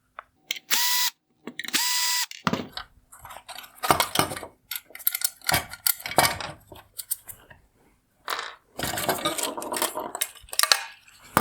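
Cordless electric screwdriver whirring in two short runs, backing out the two Phillips screws that hold the headlight projector to its bracket. These are followed by irregular clicks and rattles of plastic and metal headlight parts being handled.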